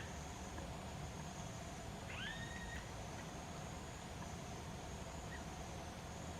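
A baby woolly monkey's hiccup: one short, high-pitched squeak about two seconds in that rises and then holds its pitch, over a steady background hum.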